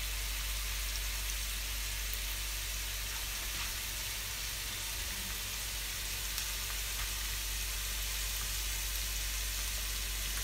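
Chopped onions simmering in white wine in a nonstick frying pan on an electric hob, giving a steady soft sizzle, with a low steady hum underneath.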